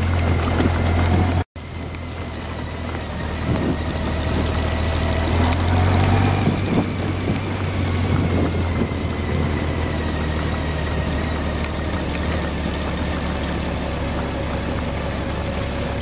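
Motorcycle engine running steadily at low speed, heard from the bike itself with wind and road noise over a rough, potholed surface. The sound cuts out briefly about a second and a half in.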